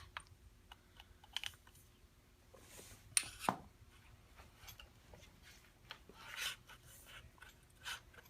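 Handling noise from adjusting a bicycle handlebar assembly: faint scattered clicks and taps as its small bar clamps are loosened and the bars moved, with a louder scrape and knock about three seconds in.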